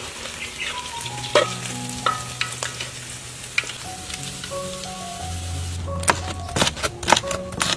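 Pork deep-frying in hot oil, sizzling steadily as a slotted skimmer stirs it, over background music. In the last couple of seconds a run of sharp knocks comes in.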